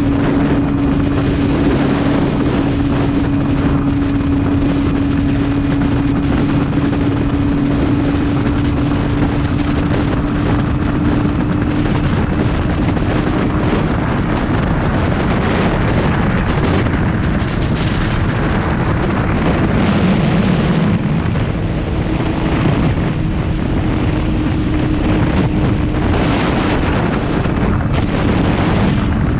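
Motorcycle engine running at a steady cruising pace, with wind rushing over the microphone. The engine note changes briefly about twenty seconds in and then settles again.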